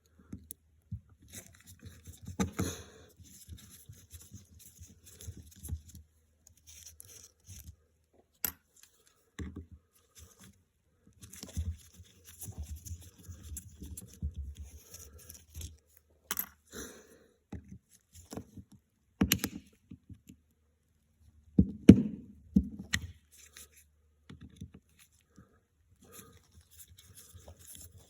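Carburetor parts and hand tools being handled during disassembly: scattered clicks, scrapes and light knocks of small metal parts and screws, with a cluster of louder knocks about three quarters of the way through.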